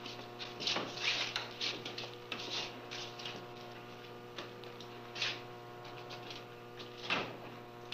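Footsteps of several people walking on a hard floor: irregular sharp steps, thicker in the first few seconds, then sparser, over a steady low hum.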